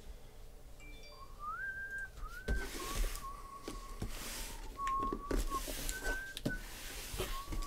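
A person whistling a few notes of a tune, with rustling and scraping from a cardboard case being turned and slid about on the table.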